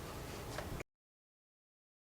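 Faint background noise with a small click, cut off abruptly under a second in, then complete digital silence.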